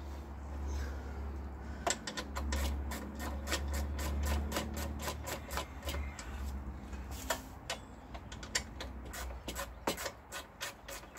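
Rapid, irregular clicking, several sharp clicks a second, starting about two seconds in, over a low steady hum.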